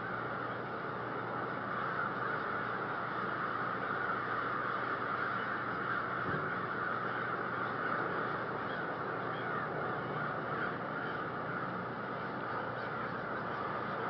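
A large flock of crows cawing all at once, blending into a steady, dense chorus in which no single call stands out.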